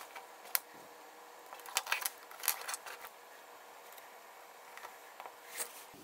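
Scattered sharp clicks and taps of hands handling small electronics: one about half a second in, a quick cluster around two to three seconds, and another near the end, over a faint steady hiss.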